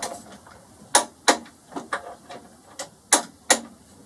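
Click-type torque wrench on the brake caliper bolts, ratcheting and clicking as the bolts are brought to 39 Nm. Sharp clicks come in two loud pairs, about a second in and about three seconds in, with lighter clicks between.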